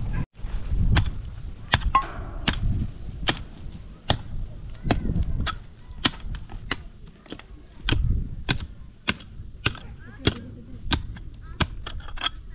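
A run of sharp knocks or blows, about two a second and slightly uneven, like a tool striking repeatedly.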